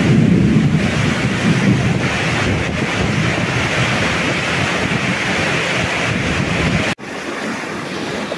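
Heavy rain pouring steadily, with wind rumbling on the microphone. About seven seconds in it cuts off abruptly to muddy floodwater rushing over rocks.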